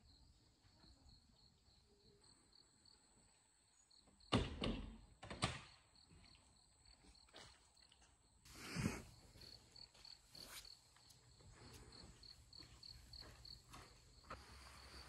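Faint outdoor ambience with an insect chirping steadily, a high pulse about three times a second. A few thumps stand out about four, five and nine seconds in.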